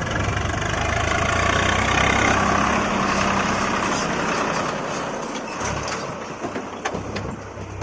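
Heavy diesel engine running steadily at low revs, its hum fading away after about five seconds, with a few short sharp knocks near the end.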